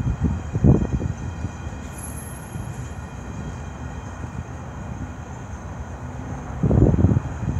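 CN freight train of empty centerbeam flatcars rolling past at close range: a steady rumble of steel wheels on rail, with louder low bursts about a second in and again near the end.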